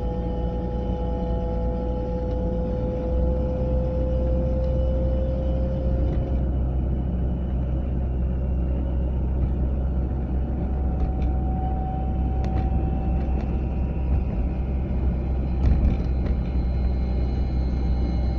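Volvo 940 driving at road speed, heard from inside the cabin as a steady low road-and-engine rumble. Over it, in the first few seconds, runs a thin tone that slowly rises in pitch, and another briefly comes in later: the unidentified noise from the passenger side that shows up around 30 to 40 mph.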